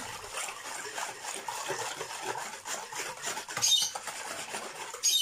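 Wire whisk stirring a thin milk-and-yeast liquid in a plastic bowl: a quick, continuous wet swishing and scraping, with a brief sharper rattle a little after halfway.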